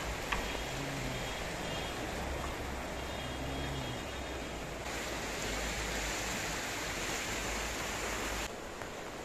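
Steady rush of the fast-flowing Swat River over rocks. The hiss brightens about five seconds in and drops a little in level near the end.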